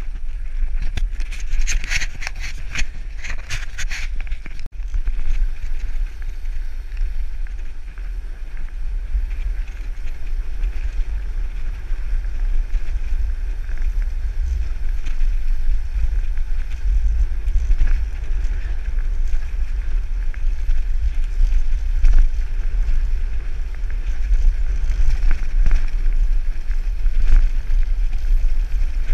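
Heavy wind buffeting on the microphone of a bike-mounted camera on a fast road-bike descent, a steady low rumble with tyre hiss from the tarmac underneath. A burst of quick rattling clicks comes in the first few seconds.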